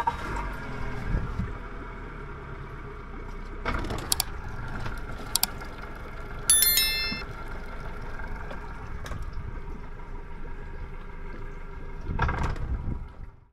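Boat motor running steadily, with a few knocks and a short bell-like ding about halfway through.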